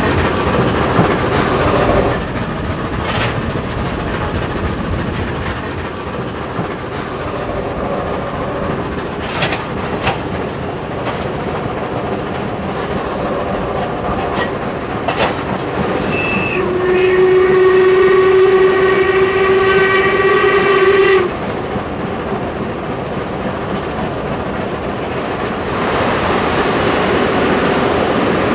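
Steam locomotive 464.202 running at speed, heard from the cab: a steady running rumble with scattered sharp clicks from the wheels over the rails. Midway the whistle gives one long steady blast of about four seconds. Near the end the running noise grows louder as the train enters a tunnel.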